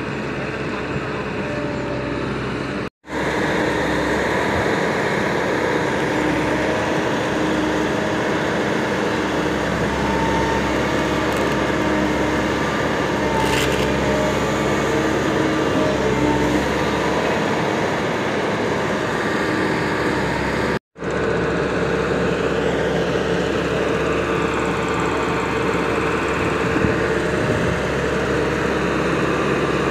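CAT hydraulic excavator's diesel engine running steadily as the machine digs. The sound breaks off for an instant twice.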